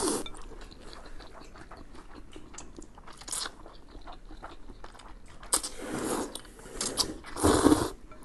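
Buckwheat noodles being slurped up and chewed: several slurps, about three seconds in, around six seconds and loudest near the end, with small wet chewing clicks between them.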